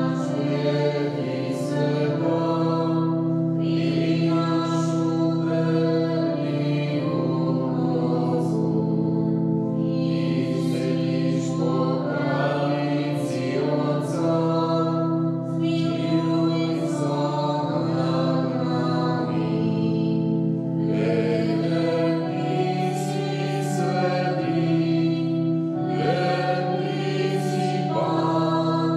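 Voices singing a church hymn over held organ chords, one phrase running into the next.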